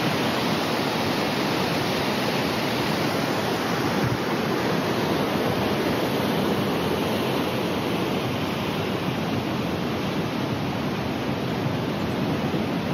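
Waterfall and river rapids rushing steadily: an even, unbroken wash of white-water noise.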